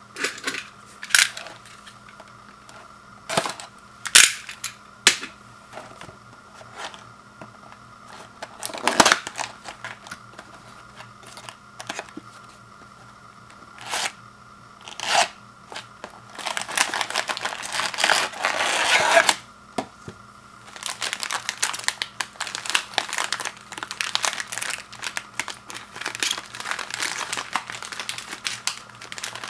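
A cardboard biscuit box being opened by hand: a string of sharp snaps and tears, then long spells of plastic-wrapped biscuit packets crinkling as they are handled.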